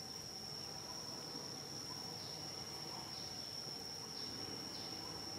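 Steady high-pitched insect drone, one unbroken tone, with a few faint short falling chirps over a low outdoor background hum.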